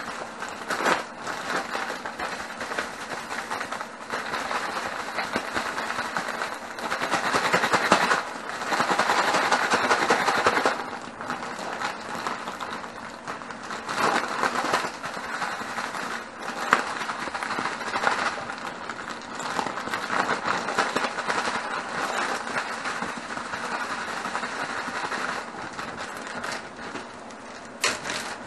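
Zip-top plastic bag crinkling and rustling as chicken pieces are shaken and squeezed in batter inside it, in surges that rise and fall. Near the end, a sharp snap as the bag's zip seal is pulled open.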